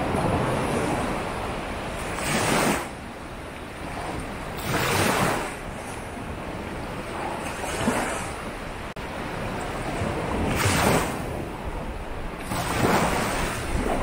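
Ocean surf on a beach: waves breaking and washing up the shore over a steady rush of water, with five louder surges, one every two to three seconds.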